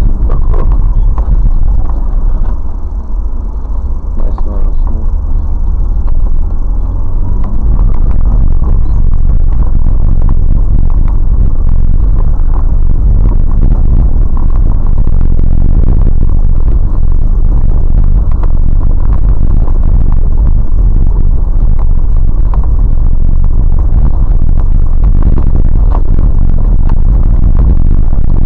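Vehicle driving on a snow-covered dirt track, heard from inside through a dashcam microphone: a loud, distorted rumble that eases off for a few seconds near the start.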